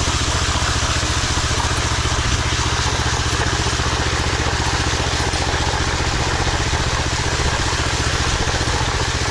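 Power trowel's engine running steadily with a rapid even pulse, as the machine finishes a concrete slab.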